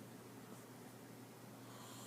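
Near silence: a sleeping person's faint breathing in a pause of the snoring.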